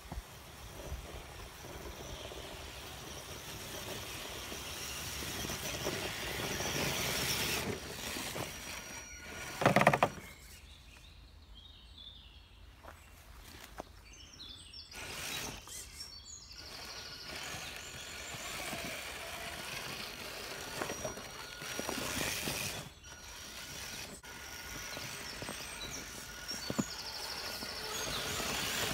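Small electric RC crawler truck running, its motor and gears whining faintly under the noise of tyres over leaf litter and the forest ground. A brief loud burst comes about ten seconds in.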